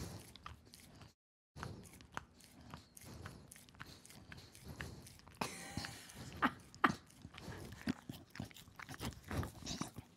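Shiba Inu licking and biting at frozen dog ice cream in a cup held up to the microphone: close, irregular wet smacks, laps and crunches. The audio cuts out completely for about half a second shortly after the start.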